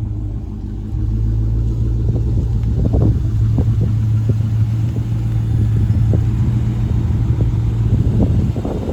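A car engine running with a steady low rumble, growing louder about a second in.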